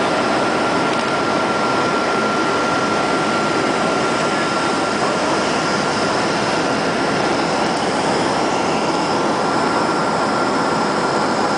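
Steady cabin noise of a Boeing 737-300 in flight: the even rush of its CFM56 jet engines and the airflow over the fuselage, with a faint steady whine held throughout.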